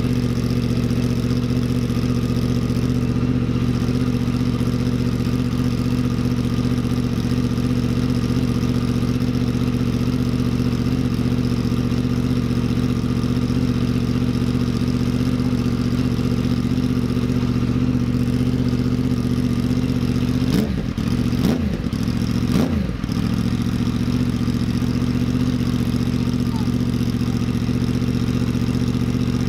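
Yamaha R1's inline-four engine idling steadily through a Graves titanium full exhaust system with carbon fibre mufflers, freshly installed and just started. About twenty-one seconds in the pitch rises and falls in a few quick throttle blips. The owner finds the mid-pipe leaking exhaust where it meets the header collector.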